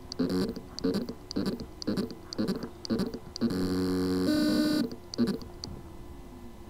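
Hard drive spindle motor trying to spin up and failing: short buzzing chirps about twice a second, a longer buzzing tone for about a second in the middle, then the sound dies away. This is the sound of loose motor contacts, where the motor can spin but cannot reach its full speed.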